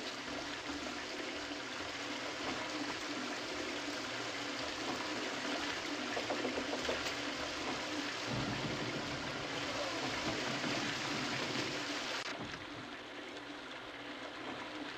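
Water running steadily into a bathtub. The sound thins and becomes duller suddenly about twelve seconds in.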